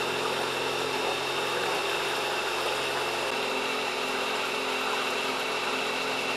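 Electric outboard motor of a homemade solar boat running steadily under way: a steady high-pitched whine over a constant rushing noise.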